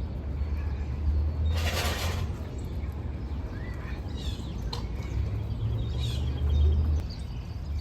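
Songbirds chirping in short scattered calls over a steady low rumble, with a short burst of hiss about a second and a half in.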